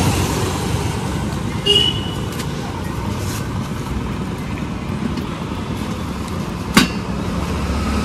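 Road traffic noise, with vehicle engines running steadily. A short high beep comes a little under two seconds in, and a sharp click a little before the end.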